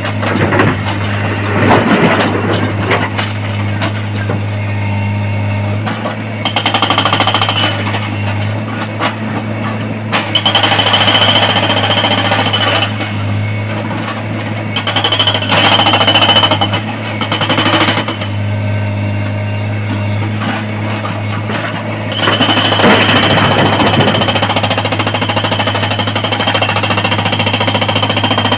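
Excavator-mounted hydraulic rock breaker on a Tata Hitachi excavator, hammering quarry rock in repeated spells of rapid blows, the longest spell near the end. Under it the excavator's diesel engine runs with a steady low hum.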